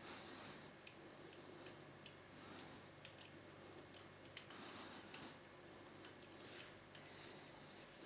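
Faint, irregular metallic clicks of a lock pick and tension wrench working the six rotating pins of a Medeco Original lock cylinder.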